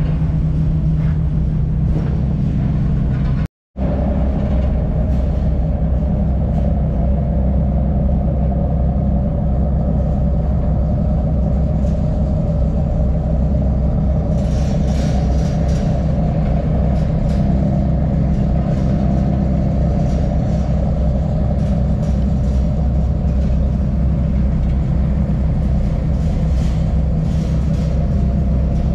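A car ferry's engines running with a steady low rumble and hum, broken by a momentary gap about three and a half seconds in.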